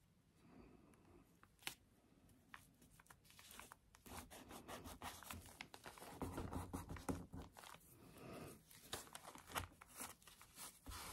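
Faint rustling and rubbing of paper as hands press and smooth a glued tea-bag paper embellishment down onto a journal page, with one sharp click near the start.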